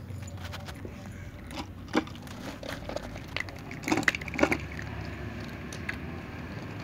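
Several cats crunching dry kibble, with irregular clicking and a few louder clicks about two and four seconds in.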